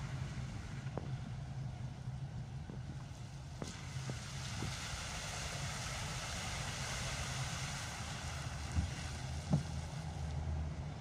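Car interior while driving in rain: a steady low engine and road hum under a hiss of tyres on the wet road and rain on the car, the hiss swelling in the middle. A few light knocks, the loudest two near the end.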